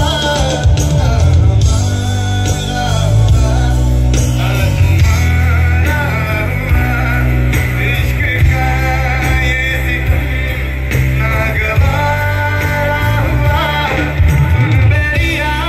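Live band playing through a concert sound system: electric guitars and a drum kit, with singing over them.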